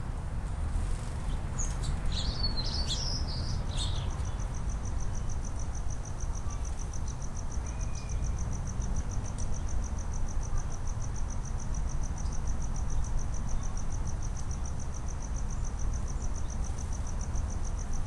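A few short, quick small-bird chirps in the first few seconds. Then a steady, high-pitched, rapidly pulsing insect-like trill sets in and runs on unchanged. A low outdoor background rumble sits beneath.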